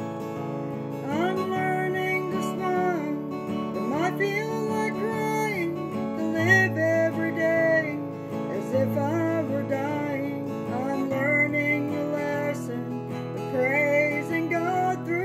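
A woman singing while strumming an acoustic guitar, her sung phrases beginning about a second in over the steady guitar chords.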